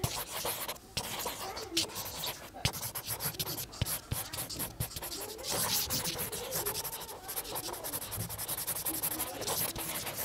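Broad chisel tip of an alcohol marker rubbing quickly back and forth on paper, a dry scratching as small colour swatches are filled in.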